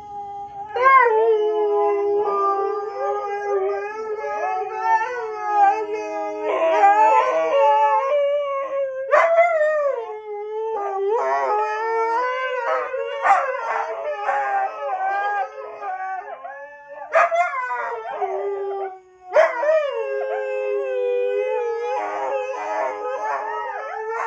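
Several huskies howling together: long, wavering howls that overlap one another, broken by short yips, with one brief pause about three quarters of the way through.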